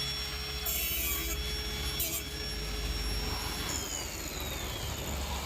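A handheld power tool running with a steady high whine, with a few short bursts of cutting or grinding contact, then winding down in pitch near the end as it is switched off.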